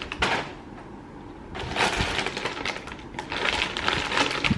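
Plastic snack bag crinkling and crackling as it is handled and pulled at to tear it open, with irregular crackles that grow busier about a third of the way in.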